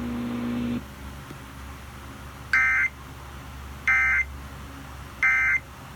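Emergency Alert System end-of-message data burst: three short, identical warbling digital screeches about a second apart, which mark the end of the alert. A low steady hum stops just under a second in.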